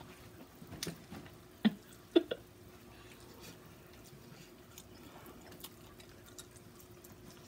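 Wet mouth clicks and smacks of someone biting into and eating sticky, sauce-covered chicken drumsticks, a few short ones in the first couple of seconds, the loudest two about half a second apart. A faint steady hum runs underneath.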